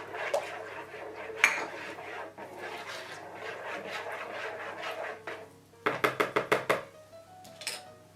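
Utensil clattering and scraping against a mixing bowl as wet cake ingredients are handled, with a sharp knock about a second and a half in and a quick run of taps about six seconds in. Background music plays underneath.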